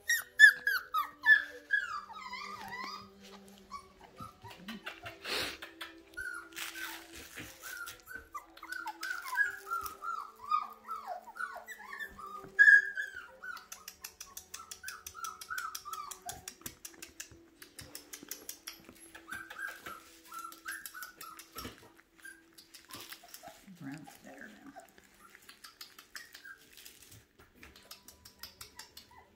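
Young puppies whimpering and crying in many short, high cries, densest in the first half and fewer later, with light scratching and clicking sounds among them.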